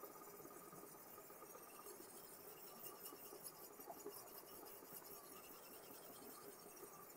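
Faint, continuous scraping of a sharpening stone stroked along the steel edge of a chef knife on a guided sharpening system.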